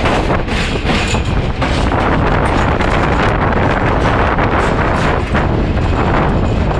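Train running at speed, heard from inside the carriage: a steady low rumble and rattle of wheels on the rails, with wind buffeting the microphone.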